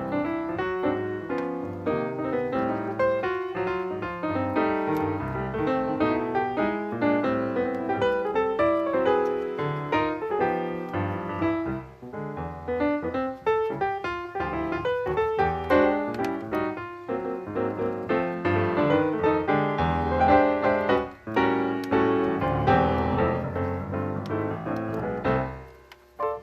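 Background music led by a piano playing a brisk run of notes.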